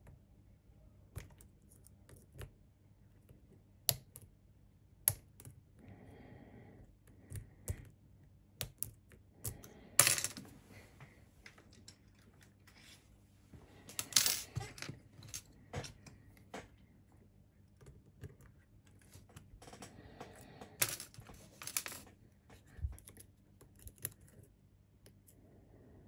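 Scattered small metallic clicks and scrapes of lock picks and a tension wrench working inside a pin-tumbler lock cylinder, with a few louder clatters of tools being changed about 10, 14 and 21 seconds in.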